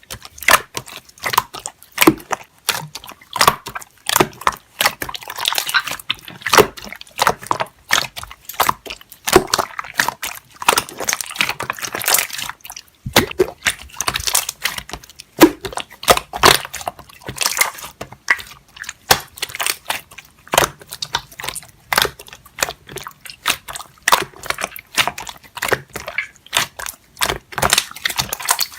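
Hands squishing, stretching and poking slime: a dense, uneven run of wet clicks, pops and crackles.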